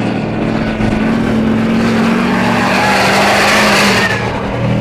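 Race trucks' engines running hard at full throttle during a drag run, loudest about three seconds in: a big-tyred Duramax diesel Chevy against a 350 small-block Chevy V8.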